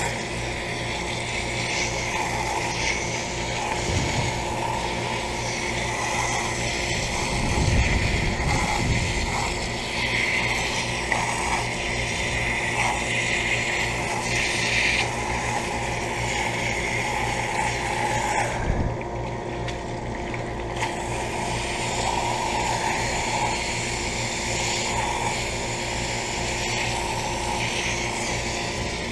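Water spraying from a hose onto an outdoor air conditioner unit over a steady low mechanical hum; the spray breaks off for about two seconds in the middle.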